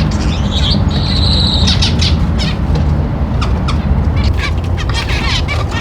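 A mixed flock of small aviary birds chirping and squawking over one another, with a steady low rumble underneath.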